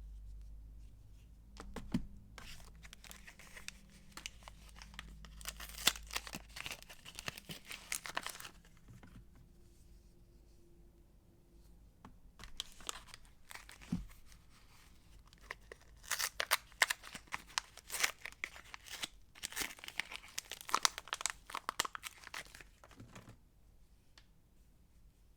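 Soap packaging being torn open and crinkled by hand: a spell of crackly tearing and rustling, a quieter pause with a few light ticks, then a second spell of tearing and crinkling.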